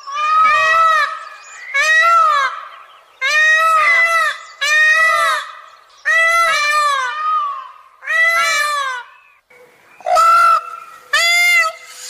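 Peacock (Indian peafowl) calling: a run of about eight loud, harsh calls, each rising then falling in pitch, about one a second, with a brief pause before the last two.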